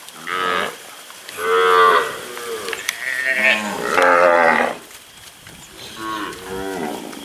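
Zebu calf bawling over and over, about half a dozen calls of varying length, some short and some drawn out for nearly a second.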